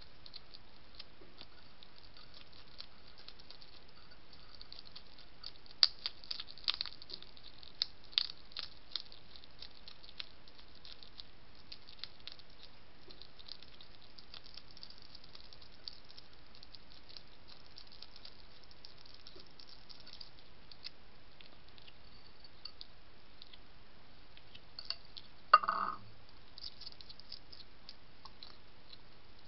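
European hedgehog eating dry food from a shallow dish: scattered crisp crunches and clicks, busiest about six to nine seconds in, with one louder, rough sound lasting about half a second near the end. A steady faint hiss lies underneath.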